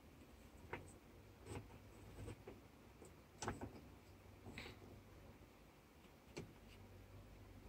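Faint, scattered clicks and light knocks, about six of them, from the plastic and metal parts of a scale RC crawler chassis being handled as its axle and wheels are shifted along the steel frame rails.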